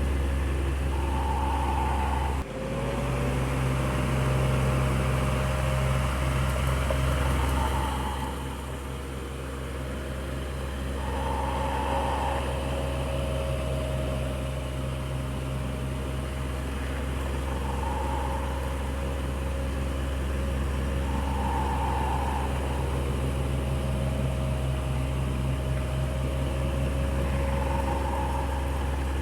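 Electric fan running with a steady motor hum and air noise. A faint sound comes back every three to four seconds, and the hum dips briefly and shifts slightly about two and a half seconds in.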